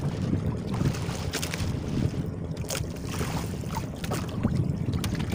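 Wind buffeting the microphone over open water from a small outrigger boat, a steady low rumble, with a few short rustles as a plastic sack of fish is handled.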